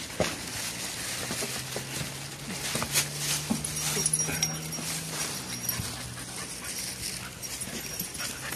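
Shiba Inu dogs panting and moving about, with a few sharp scuffs and clicks of handling and paws.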